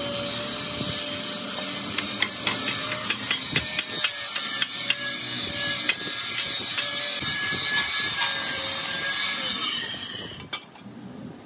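Stick (arc) welding on steel plate: a steady crackling hiss from the arc, with a run of sharp pops between about two and six seconds in, cutting off suddenly about ten seconds in as the arc is broken.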